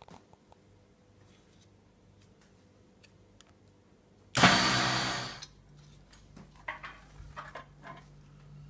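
Can-Am Outlander ATV's V-twin engine started: a loud flare about four seconds in as it catches, dying away within a second to a steady idle, with a few light clicks over it.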